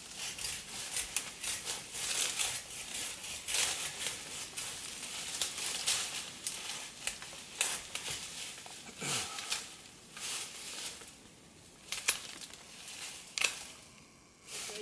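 Rhododendron branches and leaves rustling and crackling as brush is pushed through, with many sharp snaps of twigs.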